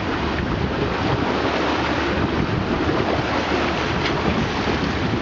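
Bow wave rushing and splashing along the hull of a sailboat under way, with wind buffeting the microphone: a steady, even wash of noise.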